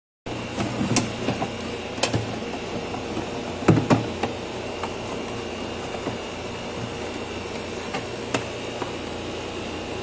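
A plastic freezer evaporator cover panel being handled and pressed into place: several sharp plastic knocks and clicks, the loudest a quick pair about four seconds in, over a steady background hum.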